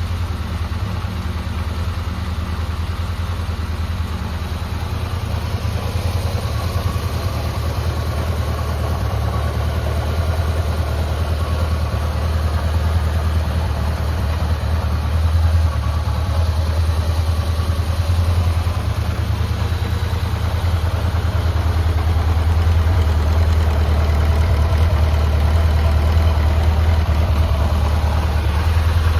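Honda CB750FB's air-cooled inline-four engine idling steadily, growing slightly louder in the second half; the seller lists it as running without abnormal noise.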